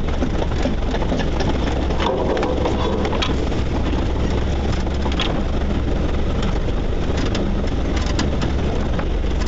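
Off-road 4x4's engine running steadily at low revs while it is driven over a rough dirt track, heard from inside the cab, with scattered knocks and clatter from the vehicle over the bumps.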